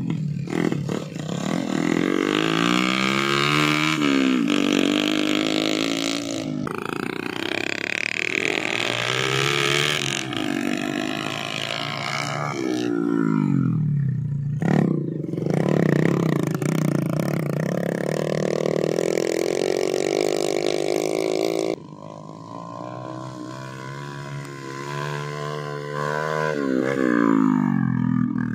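Small trail motorcycle engines revving while hauling heavy sacks of rice over soft ground, the pitch rising and falling again and again as the throttle opens and closes. The sound changes abruptly a few times and is quieter for a few seconds about two-thirds of the way through.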